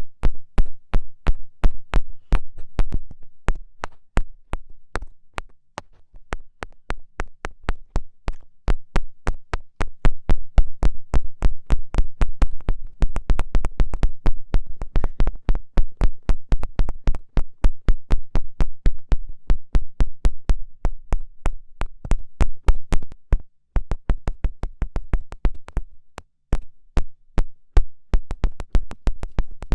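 Rapid fingertip taps, several a second in uneven runs, each a sharp click with a dull thud beneath, easing off briefly twice.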